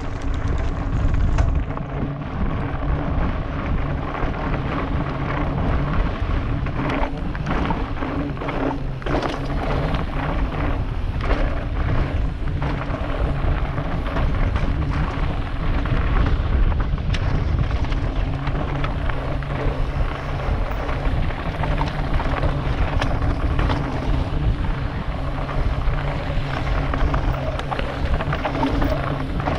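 Mountain bike descending a loose, stony gravel trail, heard from a helmet camera: wind rushing over the microphone and tyres rolling over stones, with the bike knocking and rattling over bumps, most often in the middle stretch.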